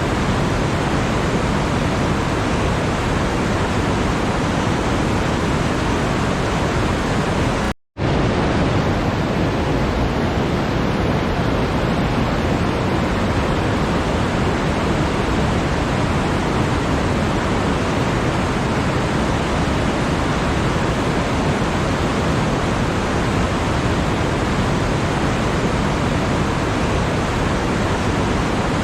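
Steady, even rushing noise across the whole range, with no pattern in it. It cuts out completely for a split second about eight seconds in, then resumes unchanged.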